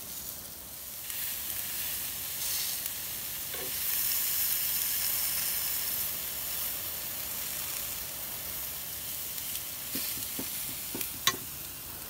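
Food frying in hot oil with a steady sizzle and a few small crackles. A sharp click comes near the end.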